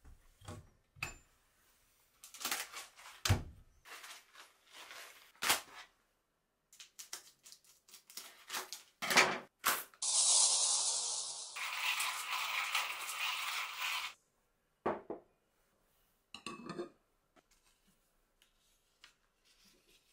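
Kitchen handling sounds while making coffee: a string of separate knocks and clinks, then about four seconds of coffee beans pouring and rattling into a hand coffee grinder, then a few more knocks and a rustle.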